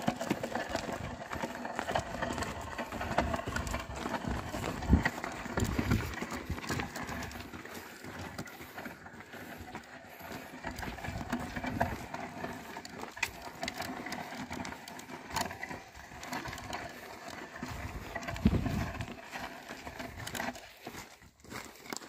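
A yoked pair of oxen walking as they pull a wooden plough through dry soil: irregular hoof falls and scraping knocks from the plough dragging through the earth.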